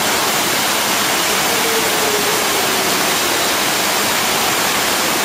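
Steady, loud rushing noise of an indoor swimming pool hall, like running water, with no distinct splashes.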